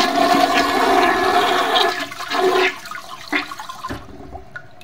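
Toilet flushing: a loud rush of water that fades away about three to four seconds in.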